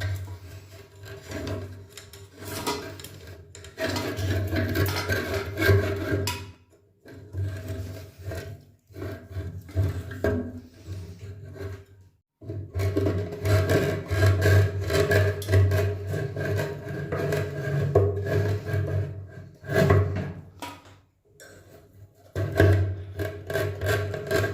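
Tools scraping and rubbing on metal parts of the geyser as its jammed assembly is worked loose, in long rough stretches broken by short pauses, with a steady low hum underneath.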